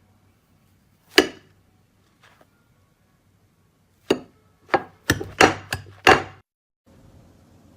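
Slime being handled, making short sharp pops: one about a second in, then a quick run of about six near the middle.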